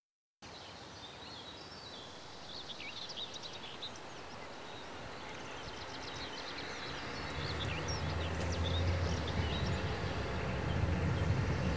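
Birds chirping in woodland, with a car approaching along the road: the low hum of its engine and tyres comes in around the middle and grows steadily louder.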